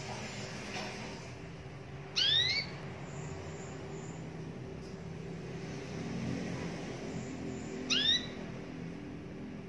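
Caged local canary giving two short, loud rising calls about six seconds apart, over a steady low background hum.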